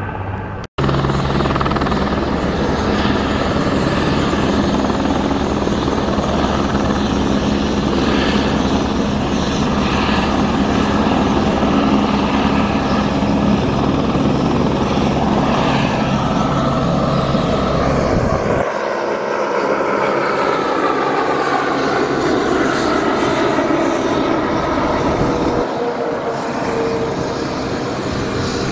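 Light single-engine helicopter, an Airbus H125 (AS350 type), its rotor beating steadily as it hovers and lifts off. It then passes overhead and away, its whine falling in pitch as the low rotor beat fades about two-thirds of the way in. A brief break in the sound comes less than a second in.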